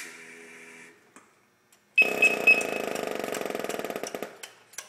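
SCBA being pressurized as the cylinder valve is opened: a fading hiss of air in the first second, then about two seconds in the set's start-up alarms sound for about two seconds, three high beeps over a loud, rapid rattling buzz.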